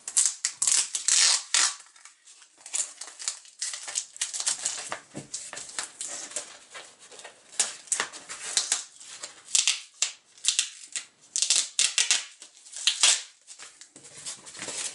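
A cardboard mailer being cut and torn open by hand: a quick, irregular run of scraping, ripping rasps of cardboard and packing tape, then a bagged comic and its backing board sliding out of the mailer near the end.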